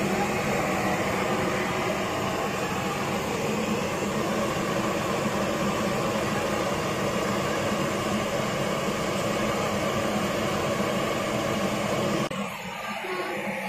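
Large centrifugal exhaust blower of a kitchen fume-purification unit running steadily: an even rush of air over a low hum. The sound drops off suddenly near the end.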